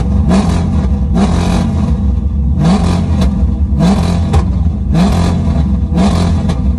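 Cammed LS V8 with a loud exhaust, revved again and again against a Lingenfelter LNC-2000 rev limiter set to about 3500 rpm: about six surges roughly a second apart, each rising in pitch and then held flat at the limit. The exhaust is still cold, so it gives few pops or crackles.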